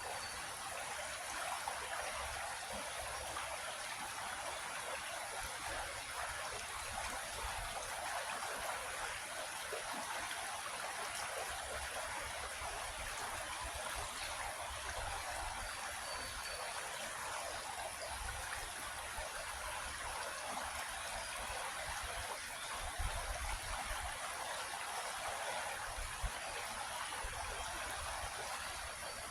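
Small creek flowing steadily over rocks, a continuous rushing, babbling water sound.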